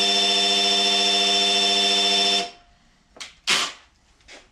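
Cordless drill spinning the oil pump of a small-block Chevy LT1 V8 through the distributor hole, priming the oil system and lifters; its steady whine cuts off about two and a half seconds in. A few brief clatters follow as the drill is lifted away.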